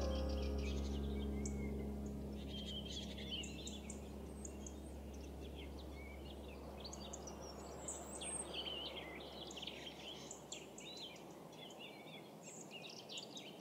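Many small birds chirping and calling in the trees, short high notes scattered throughout and thickest in the second half, over a faint steady outdoor hiss. The tail of background music fades out in the first couple of seconds.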